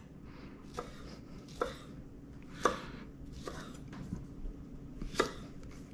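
Knife roughly cutting up a beefsteak tomato: about six separate chops, roughly a second apart.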